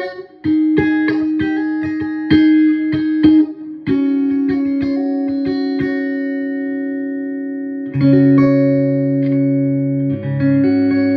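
Electric guitar played through a Vogel AB763 Fender-style tube amp head: quick picked notes and chords, then held chords left ringing, struck about four, eight and ten seconds in.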